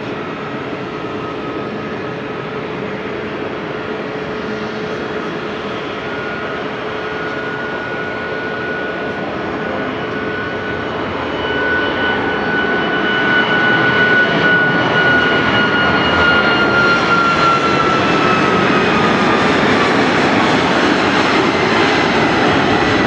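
SpiceJet Boeing 737 jet engines at takeoff thrust: a steady roar with a whine, growing louder about halfway through as the airliner lifts off and passes. The whine then drops in pitch as it climbs away.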